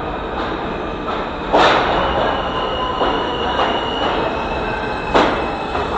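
R160 subway train pulling into a station: a steady rumble of wheels on rail with a high squeal setting in about two seconds in, broken by two sharp clacks, the louder one near the end.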